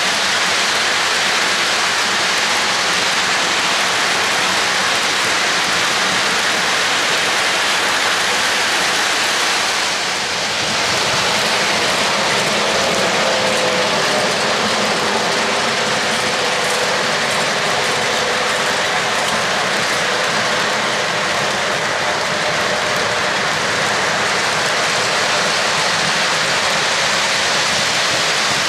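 O-gauge model freight train rolling past on three-rail track: a steady rushing clatter of metal wheels on the rails, with a faint whine around the middle as the diesel locomotive goes by.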